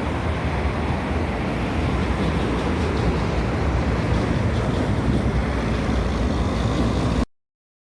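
Steady rumble of road traffic with wind buffeting the microphone, cutting off abruptly about seven seconds in.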